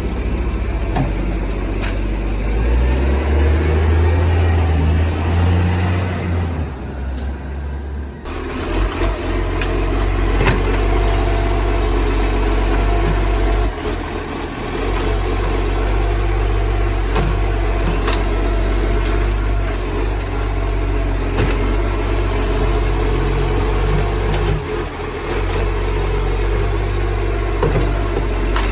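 Garbage truck's diesel engine running loud with a massive exhaust leak, a deep raspy exhaust note that the owner likens to a Euro 3. The engine note rises for a few seconds about three seconds in, then drops back.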